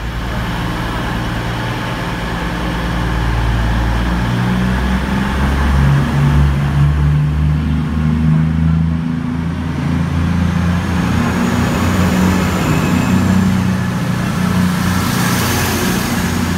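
Diesel engines of a CrossCountry passenger train running loud close by as the train moves along the platform, several low engine tones together, growing louder about four seconds in.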